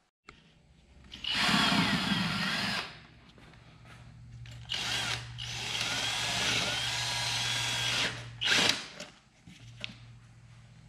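Cordless drill boring holes through a Corvette's quarter panel, run in bursts. The first comes about a second in, a longer run of about three seconds follows from about five seconds in, and a short burst comes right after it.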